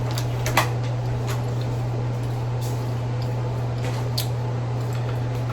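A few scattered sharp clicks and cracks of crawfish shells being handled and broken open for eating, over a steady low hum.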